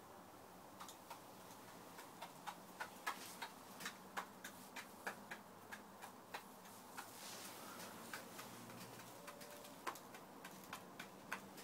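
Hybrid hen pecking grain from a plastic feed dish: a run of quick, irregular ticks of the beak striking the dish and grain, a few a second, thinning out after the middle.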